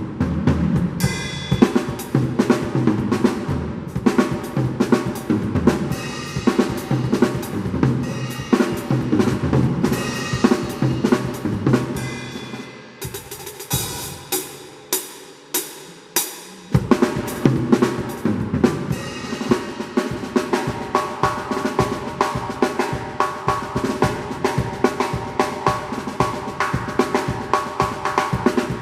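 Drum kit played in a fast Congolese sebene groove, with snare, bass drum, hi-hat and cymbals. About halfway through it thins to a few separate hits for a few seconds, then the full groove comes back in.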